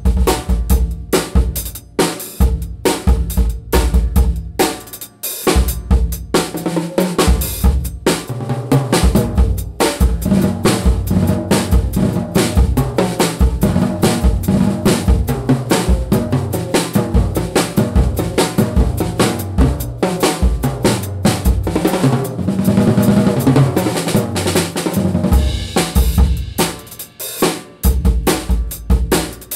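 Mapex VX drum kit tuned high, played with sticks: snare, bass drum, toms, hi-hat and cymbals in a steady beat, then a long busy passage of fills with the drum pitches moving around, then the beat again near the end.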